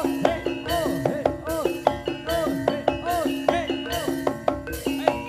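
East Javanese jaranan gamelan ensemble playing: quick drum strokes over a sustained gong-like tone, with swooping pitched notes that rise and fall again and again.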